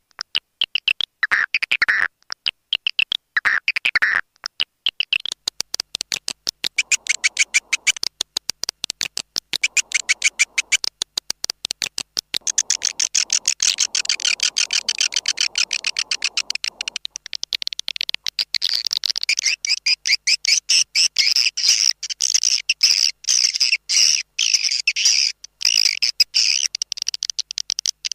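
Swiftlet calling sound: a recording of swiftlet chirps and twitters in rapid, high-pitched runs, of the kind played to lure swiftlets into a nesting house. It starts as short separate bursts, then thickens into an almost unbroken chatter, densest in the second half.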